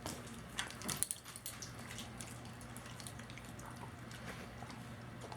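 Dog eating from a bowl: faint wet smacking and scattered small clicks of chewing.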